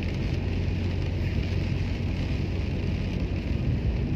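Inside a car driving through heavy rain: a steady low hum of the engine and tyres on the wet road, with the hiss of rain on the car's body and windscreen.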